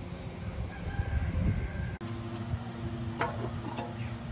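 Low rumble of wind on the microphone, then, after a cut about two seconds in, a steady low hum with a couple of sharp clicks as the plastic filler cap on top of the restored diesel engine is handled.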